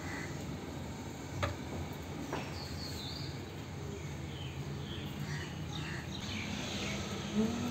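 Faint bird chirps over a steady low background hum, with a sharp click about one and a half seconds in.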